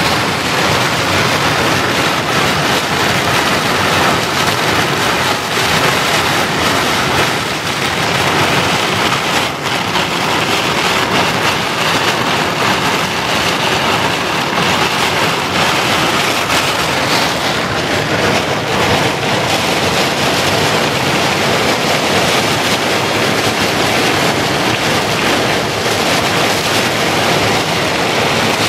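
Torrential rain pouring onto a car's roof and windows, heard from inside the car as a loud, steady rush of noise.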